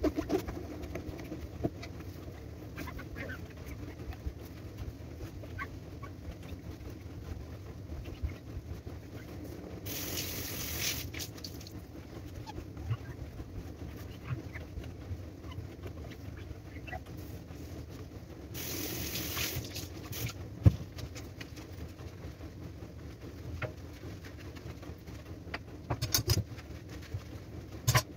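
Kitchen cleaning at a gas hob: a cloth wiping the glass top and the metal burner caps and grates clinking and knocking as they are handled, over a steady low hum. Two short hissing bursts come about ten seconds in and again a little before twenty seconds, and a cluster of clinks comes near the end.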